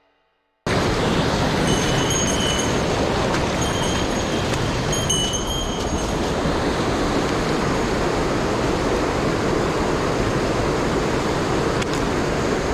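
Mountain stream rushing steadily, the water running high and swollen after recent rain. It starts suddenly under a second in, and a few short high chirps sound over it in the first few seconds.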